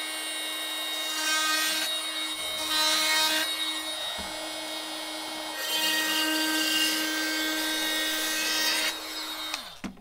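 Makita DTM52 cordless oscillating multitool running steadily with a half-round segment blade, cutting through cardboard and EPDM rubber. It gets louder and noisier in several short passes while the blade bites. Near the end it is switched off and its hum falls in pitch as it winds down.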